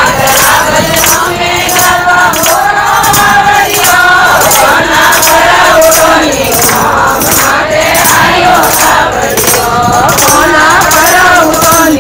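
A group of women singing a Marwari devotional bhajan to Krishna together, keeping time with steady hand-clapping.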